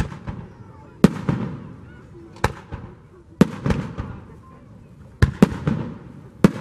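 Aerial fireworks shells bursting overhead: about six sharp booms a second or so apart, two of them close together near the end, each trailing off in a low rolling echo.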